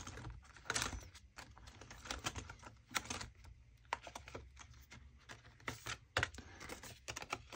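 Light, irregular clicks, taps and rustles of hands handling a ring binder's clear plastic pockets: pages turned and a card slid out of a sleeve.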